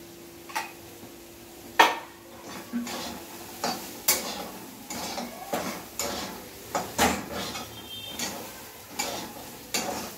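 A steel spoon stirring soya chunks frying in oil in a kadhai, scraping and knocking against the pan in irregular strokes about once a second, the loudest near two seconds in.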